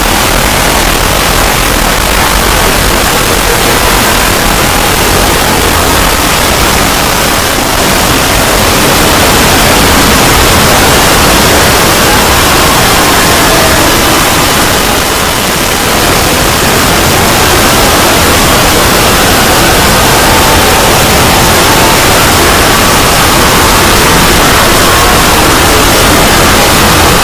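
Extremely loud, blown-out audio distorted into a constant wall of static-like noise, with only faint tones showing through.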